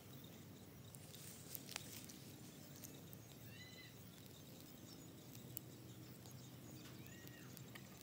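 Very quiet outdoor ambience with a few faint crackles from a small twig fire. A short, faint, high animal call arches up and down twice, about three and a half seconds in and again near the end.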